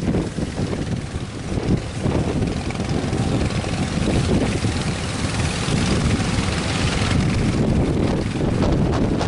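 Strong wind buffeting the microphone over the steady roar of heavy surf, a dense rumbling noise that swells a little after about two seconds.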